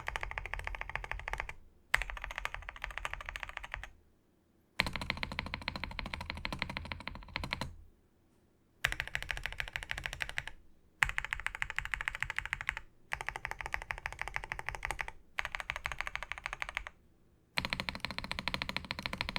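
Fast typing on a Royal Kludge R75 Pro mechanical keyboard: dense runs of key clacks in a series of separate two-to-three-second bursts with short silent breaks between them. Some bursts are deeper and fuller than others.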